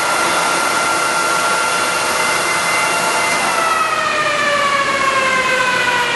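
Large milling machine running with a steady whine over a hiss; about three and a half seconds in, the whine begins falling steadily in pitch as the machine winds down.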